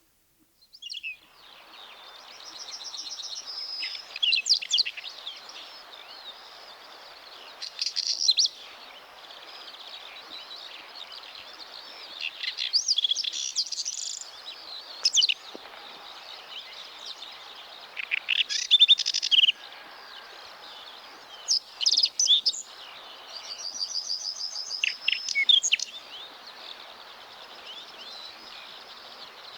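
Whinchat singing: short, scratchy phrases with quick trills, repeated about every three to four seconds over a steady hiss.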